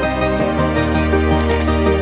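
Background music with sustained synth-like notes; a few brief faint clicks about one and a half seconds in.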